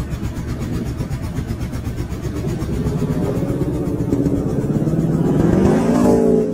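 ATV engine running and accelerating, its pitch rising through the second half and getting louder toward the end.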